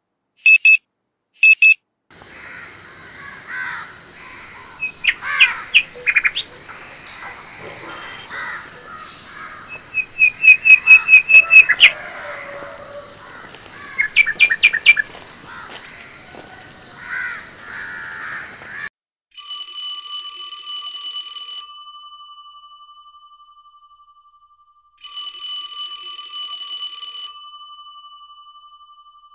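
A few short electronic beeps, then birds chirping and calling outdoors, with several quick runs of chirps. Near the end an electronic alarm tone from a tablet rings twice, each time for about three seconds before fading away.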